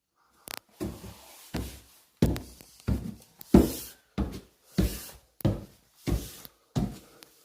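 Footsteps climbing wooden stairs of red deal, a steady thud on each tread about one and a half times a second, with a crackle from the protective paper laid over the treads.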